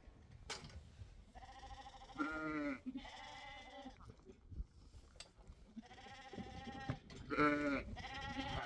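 Sheep bleating repeatedly with a quavering tone, some calls high and some deeper, in two bouts: one starting about a second in and another about six seconds in.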